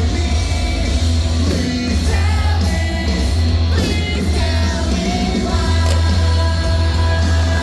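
Loud rock song with a singer and a heavy, steady bass line, with no fireworks bursts standing out.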